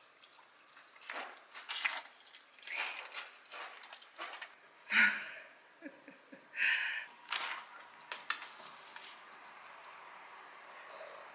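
Pomeranians eating from their bowls: irregular crunching and clicks, with two louder sounds about halfway through.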